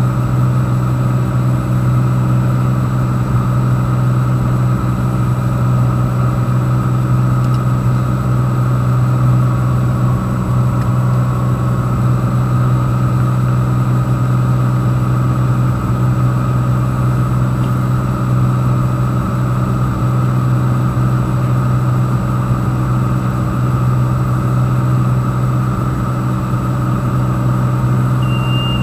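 Piper PA-46's engine and propeller droning steadily, heard from inside the cockpit. A high, repeating beep starts near the end.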